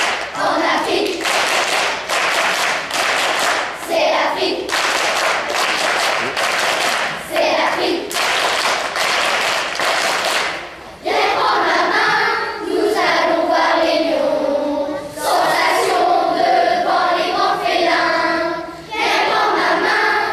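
Children's choir singing with rhythmic hand claps; about eleven seconds in the clapping stops and the singing carries on.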